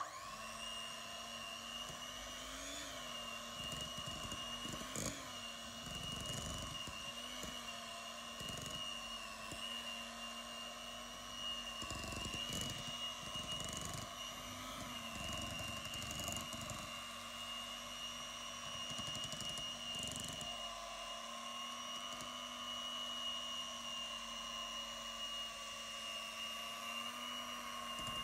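Electric stand mixer running steadily with its flat beater working a thick dough, a steady motor whine with irregular dull thumps as the dough is churned.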